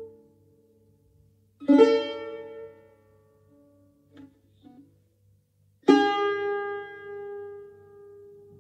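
Solo tar, the Persian long-necked lute, played as single plucked notes. A note dies away at the start, then fresh notes are struck about two seconds in and again about six seconds in, each ringing and slowly fading, the last one longest.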